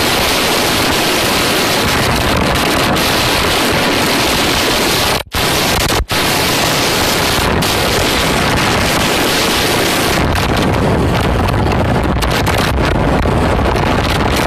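Heavy wind rushing and buffeting over a phone's microphone on a moving motorcycle, an even roar with no clear engine note. It cuts out abruptly twice, for a moment, about five and six seconds in.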